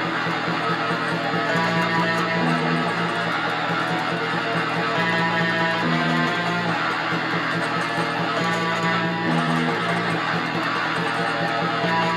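Electric guitar playing a strummed chord riff that repeats about every three and a half seconds.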